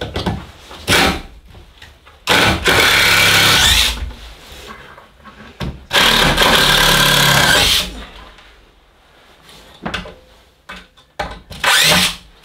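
Power drill-driver backing screws out of wooden wall studs: two runs of about a second and a half each, then a shorter burst near the end, with a few sharp knocks in between.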